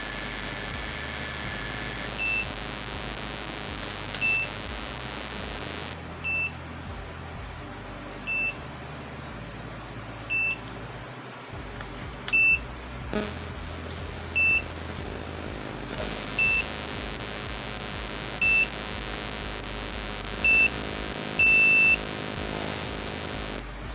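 Cordless automatic hair curler beeping with short high beeps about every two seconds while a lock of hair is wound and heated inside it, with one longer beep near the end. The beeps sound while the curl is being timed, and the hair should stay in until they finish.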